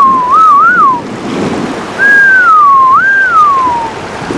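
A person whistling a short wandering tune close to the microphone: a single clear note sliding up and down in two phrases, the first ending about a second in, the second running from about two seconds to about four.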